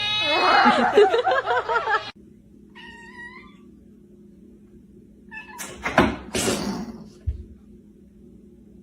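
Cat caterwauling, a loud wavering yowl that rises and falls in pitch and stops abruptly about two seconds in, followed by a short, fainter meow about a second later. Near the end come a few short noisy bursts.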